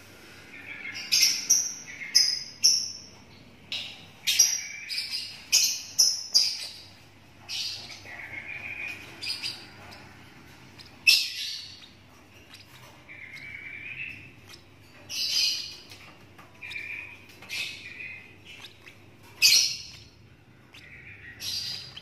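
A 17-day-old lovebird chick chirping, a long run of short, shrill calls repeated at irregular intervals of about half a second to a second and a half.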